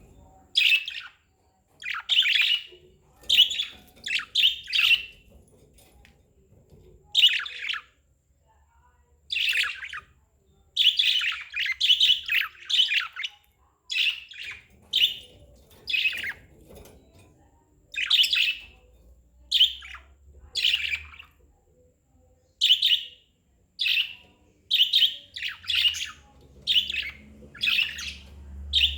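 Pet budgerigars chirping: a long run of short, high chirps, one or two each second, with a few brief pauses.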